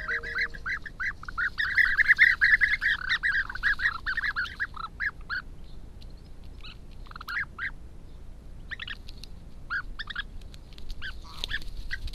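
European bee-eaters calling: a fast run of short, overlapping calls for the first five seconds or so, then scattered single calls and short groups.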